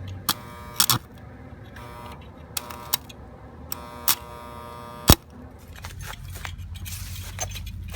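A series of sharp clicks and knocks, the loudest about five seconds in, with four short buzzing bursts of about half a second each between them.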